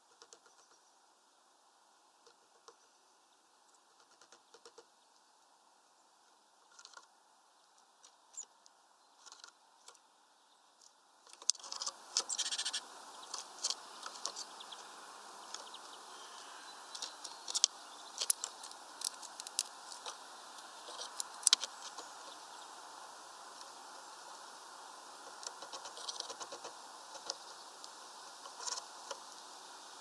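Great tits at a feeder pecking and hopping on twig perches: scattered sharp taps and clicks, busiest in the middle. A steady hiss comes up about a third of the way in.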